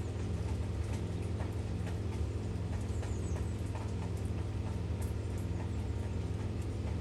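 Heavy rain, with drops tapping irregularly close to the microphone, over a steady low engine drone.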